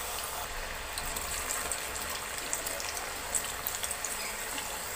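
Potato sticks deep-frying in hot oil: a steady bubbling sizzle with a few light crackles about three seconds in. This is the first, lighter fry of French fries before they are double-fried.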